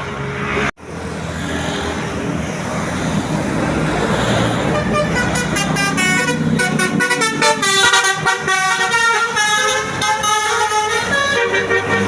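Basuri tour bus's telolet horn, a multi-tone air horn, playing a fast tune of quickly changing notes for about six seconds, over the bus engine running.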